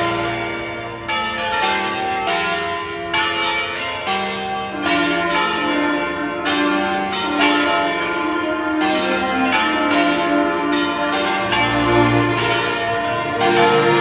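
Several church bells in a stone tower ringing together at different pitches. The strikes come quickly and irregularly, and each bell's tone rings on and overlaps the next.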